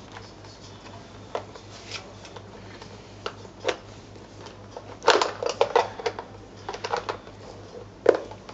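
Plastic clicks and rattles of a tyre repair kit's compressor being handled, its hose and power lead being unwound. A quick run of clicks starts about five seconds in, with another sharp one near the end, over a faint steady low hum.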